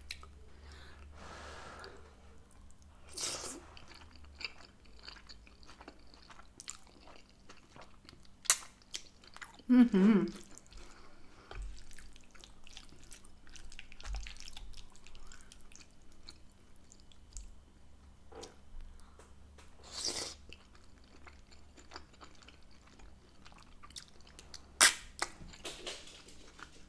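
Close-miked chewing of spaghetti bolognese, with some crunching and biting, and a few sharp clicks, the loudest about eight seconds in and near the end.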